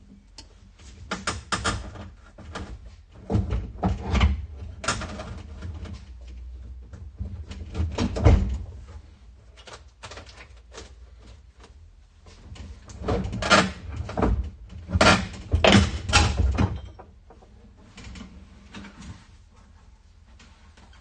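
Irregular metallic clanks and knocks as a 1969 Fiat 500 F's door is unbolted at its hinges and handled off the car, coming in clusters with the loudest knock about eight seconds in.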